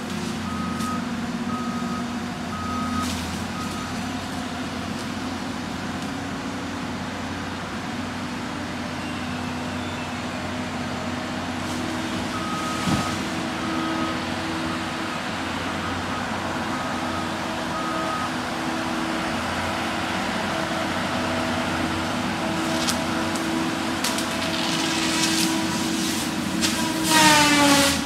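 Cat 573C feller buncher's engine running steadily, its backup alarm beeping in two spells, at the start and again about halfway through. Near the end comes a loud burst that falls quickly in pitch.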